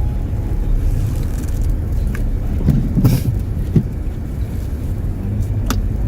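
Steady low rumble of a car driving, with a few sharp knocks, the loudest about three seconds in.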